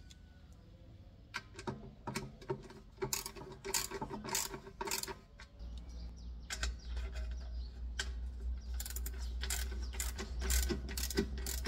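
Hand ratchet wrench clicking in short irregular runs while tightening the bolts that hold the pump's motor and pipe clamp to a stainless steel pressure tank. A steady low rumble sits underneath from about halfway.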